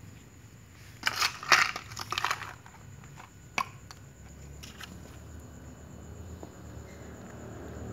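Crunching, rattling clicks of dry cat-food kibble on a tile floor: a dense burst for about a second and a half, then two single clicks.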